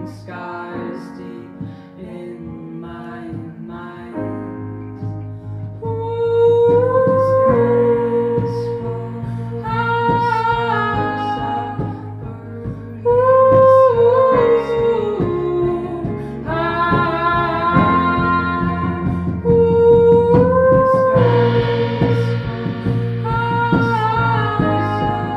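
Live band playing a slow song on drum kit, electric guitars, bass guitar and keyboard, with a woman's voice singing long held notes without words. The band swells louder about six seconds in and again around thirteen seconds in.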